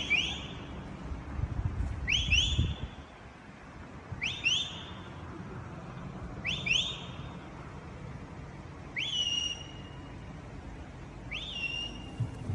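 Six short whistles about two seconds apart, each a quick rising sweep that levels off. The last two are held longer as a steady tone.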